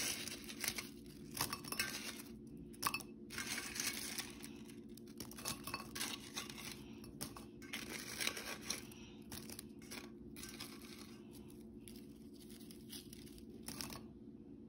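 Donut holes being rolled by hand in granulated sugar in a metal pan: an irregular gritty scraping and rustling with light clinks, which dies down near the end.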